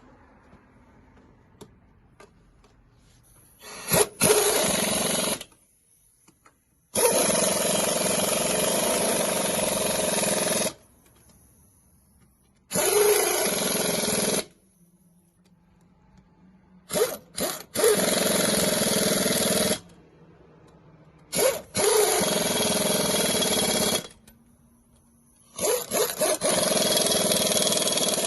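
Impact wrench tightening a van's wheel lug nuts: six separate runs of one to three and a half seconds each, some led by quick taps of the trigger.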